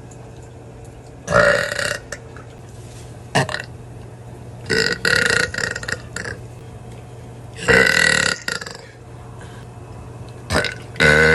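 A woman belching loudly again and again: four long, rough burps with a couple of short ones between them.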